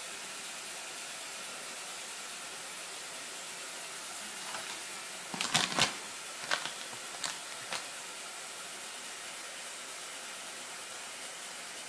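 Tap water running steadily into a sink, with a plastic bath-ball wrapper crinkling in a few short bursts about halfway through.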